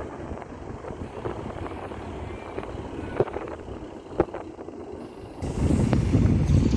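Engine of a large Fire Rescue Victoria bus-type fire vehicle running as it pulls out of the station, with two short sharp clicks a second apart in the middle. The rumble grows much louder about five seconds in as the vehicle moves off.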